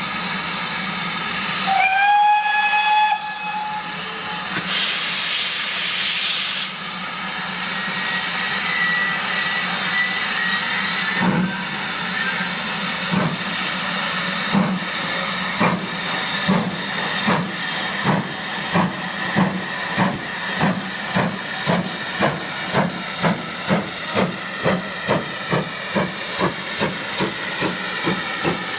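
GWR Manor class 4-6-0 steam locomotive Dinmore Manor starting away: one short whistle blast about two seconds in, a loud burst of steam a few seconds later, then the exhaust beats of its two cylinders, slowly quickening as the train gets under way, over a steady hiss of steam.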